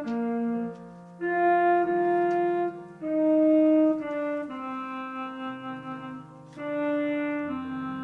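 Slow instrumental music: held chords with steady, unwavering notes and a separate bass line, changing every second or so, in a wind-like, organ- or keyboard-style voice.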